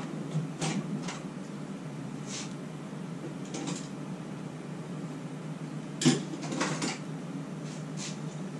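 Scattered light clicks and clatters of hand tools being handled and rummaged through, with a small burst of knocks about six seconds in, over a steady low room hum.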